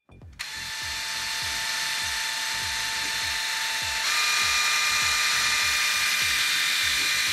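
Braun Silk-épil 9 epilator switched on and running with a steady high whine. About four seconds in it shifts to a higher, louder pitch as it is put on its faster speed setting.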